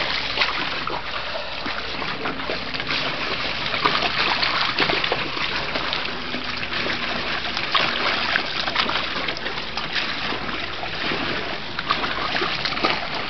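Water splashing and sloshing without pause as a bulldog walks through a shallow plastic kiddie pool.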